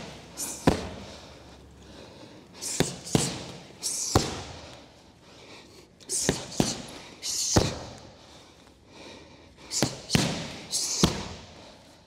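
Gloved punches and a shin kick smacking Muay Thai pads in a repeating hook, cross, switch-kick combination. Each set is two quick smacks, then the kick about a second later, and a set comes about every three and a half seconds. Short hisses sound among the strikes.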